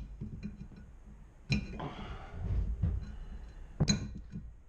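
Two sharp clinks about two seconds apart, each with a brief ring, with handling and rubbing between them, as a valve stem installer tool is worked against a lawn mower wheel to seat a new valve stem.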